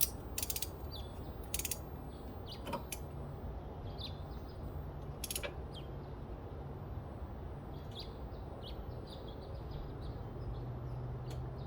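Ratchet wrench clicking in short runs on its back-strokes while a spark plug is snugged down, with a few single ticks between.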